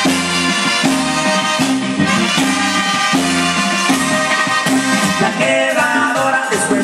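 Loud Latin dance music with a repeating bass line, a melody and a steady shaker rhythm.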